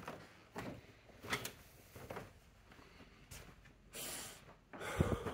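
Soft footsteps on a carpeted floor, a muffled thud about every two-thirds of a second, with some handling rustle and a louder bump near the end.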